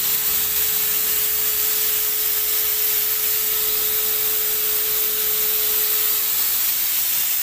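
Wagner PaintREADY Station HVLP paint sprayer running and spraying a fine mist: a loud, steady rush of air and spray with a thin steady whine that fades out about six seconds in.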